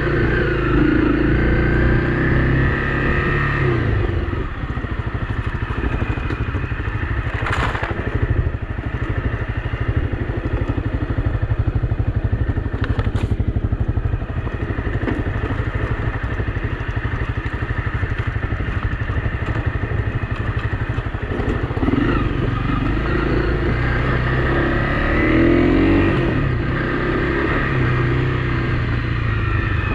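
Honda CRF250 Rally's single-cylinder four-stroke engine being ridden slowly over a rocky dirt trail, its note rising and falling with the throttle, with rattles from the bike. Two sharp knocks stand out, about eight and thirteen seconds in.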